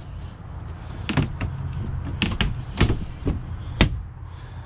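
Hinged plastic cover on a boat's helm console being closed down over the radio: a series of sharp clicks and knocks, about six in all, the loudest a little before the end, over a steady low rumble.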